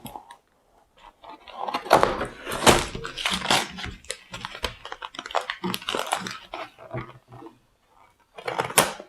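A packet of LEGO instruction manuals being handled and opened: crinkling, rustling and small knocks in uneven bursts. The loudest come about two seconds in and again near the end.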